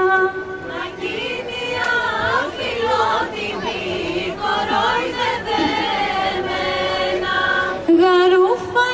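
Live Greek folk ensemble playing a kalamatianos dance tune: clarinet and violin carry an ornamented melody over laouto and percussion, with long held notes near the start and end.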